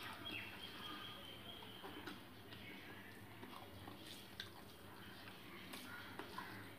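Quiet eating sounds: fingers mixing rice and fish curry on a steel plate, with some chewing. A few sharp clicks come in the second half, the sharpest a little past the middle.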